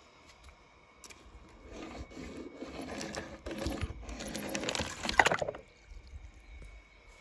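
A small die-cast toy car's wheels scraping and rolling across a sheet of paper, with the paper rustling, for a few seconds in the middle, sharpest near the end.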